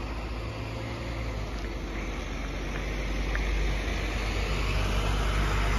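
Idling engines of parked fire engines: a steady low hum under a rushing noise, growing louder toward the end as the aerial ladder truck comes close.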